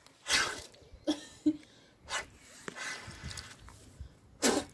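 A woman blowing hard into a cup: about six short, forceful puffs of breath, some with a grunt of voice, the loudest near the end, as she tries to blow a ping-pong ball from one water-filled cup to the next.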